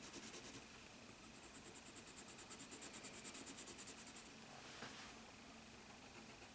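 Top Model pink coloured pencil shading on paper with quick back-and-forth strokes, about eight a second: a short run at the start, then a longer run from about a second and a half to four seconds in. Faint.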